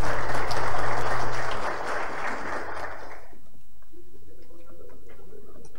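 Applause in a council chamber, dying away about three seconds in and leaving a faint murmur of voices.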